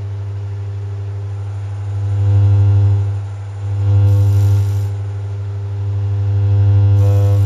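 A steady, low 100 Hz test tone that swells louder and softer: it starts moderate, swells about two seconds in, dips, swells again about four seconds in, and grows loud again from about six and a half seconds on.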